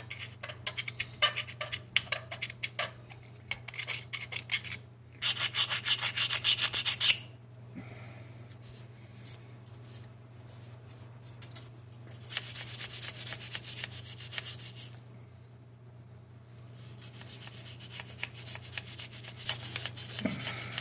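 Hand scraping and rubbing on the painted metal housing of a Ford 1710 tractor around a leaking soft plug, cleaning the spot for a new coat of JB Weld. Scratchy strokes come in several bursts with pauses between; the loudest is a fast run of strokes about five seconds in.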